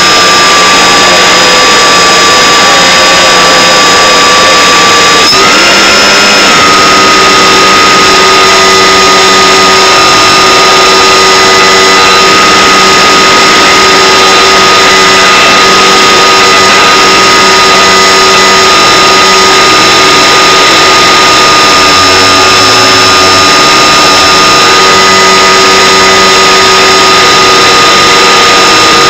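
Loud, steady hiss-like noise with several steady whining tones, picked up onboard the electric RC glider during flight; the tones shift slightly in pitch about five seconds in.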